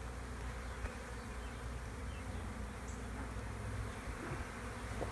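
Many honeybees buzzing steadily in flight around an open hive.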